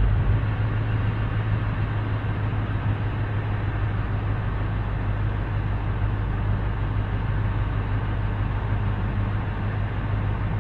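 Boat's outboard motor running steadily underway, a constant low hum with water and wind noise.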